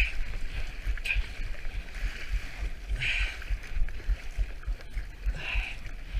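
Kayak paddle strokes splashing in choppy sea, three splashes roughly two seconds apart, over a low buffeting rumble of wind on the microphone.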